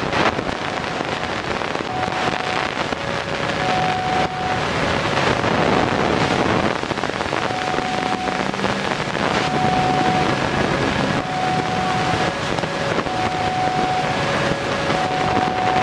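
Steady road traffic noise mixed with wind on the microphone. From about two seconds in, a faint two-note tone repeats, alternating high and low about once a second.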